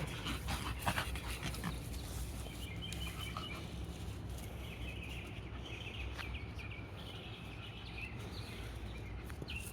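Small dogs barking faintly while sent after goats, over a steady low rumble.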